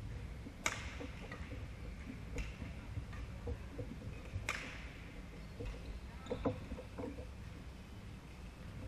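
Badminton rackets striking a shuttlecock in a rally: two sharp cracks about four seconds apart, with a fainter hit between them. Light taps and footsteps on the court follow later.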